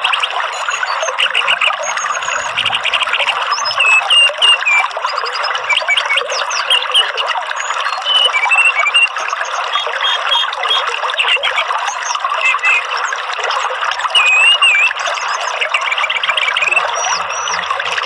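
Orange-headed thrush singing in short whistled phrases of quick rising and falling notes, over a steady rush of running water.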